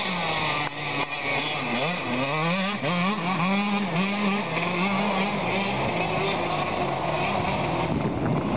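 Motocross dirt bike engine revving as it rides the track, its pitch rising and falling again and again as the throttle opens and closes and the gears change.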